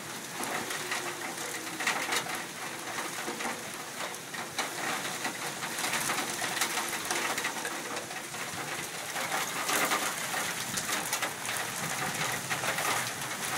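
Outdoor tornado warning siren wailing faintly under the steady noise of rain and wind gusting on the microphone.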